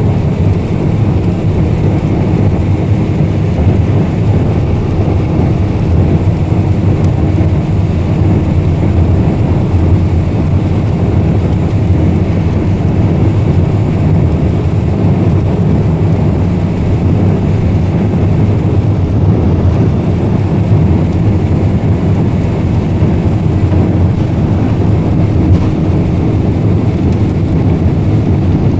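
Boeing 747-400 cabin noise: the engines and airflow make a steady, loud, low-pitched rush with a faint constant hum in it.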